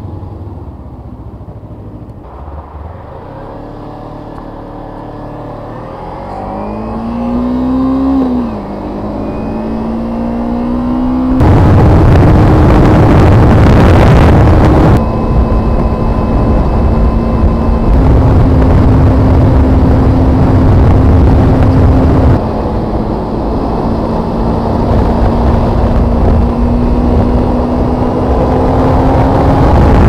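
2015 Kawasaki Ninja 250's parallel-twin engine running under way. The note climbs as it revs up about 6–8 seconds in, then drops with a gear change. After that it cruises with a steady note under loud road and wind rush, and the level jumps abruptly several times.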